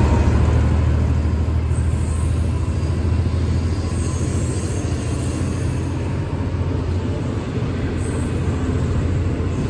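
Diesel-hauled V/Line passenger train moving off: a steady, heavy low rumble from the N class locomotive with rail and wheel noise over it, easing a little and then building slightly near the end.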